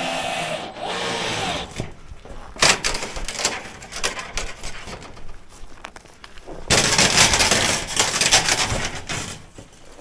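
A power tool whirs and winds down in the first second or two, followed by irregular scraping and rubbing of wood and roofing sheets. A loud rasping stretch lasts a couple of seconds from about seven seconds in.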